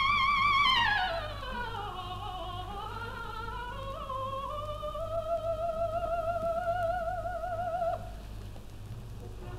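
Operatic soprano singing with vibrato: a high note glides down through a descending run, then a lower note is held until it stops about eight seconds in. A steady low hum from the old live recording runs under it.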